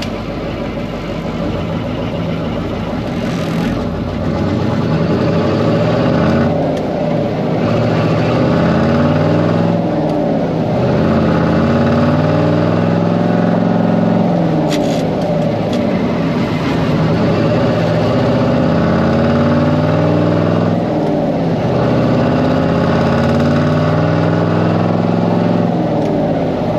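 Cummins V-555 'Triple Nickel' V8 diesel of a 1972 Brockway 358 truck pulling down the road, heard from inside the cab. The engine note climbs and then falls back several times as the Spicer twin-stick transmission is shifted through the gears.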